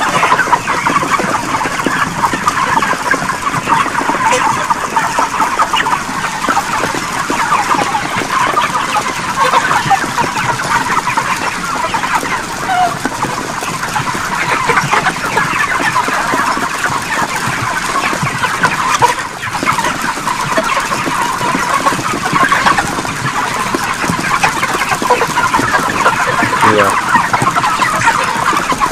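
A large flock of broiler chickens calling all at once: a dense, steady chatter of many overlapping short calls that never lets up.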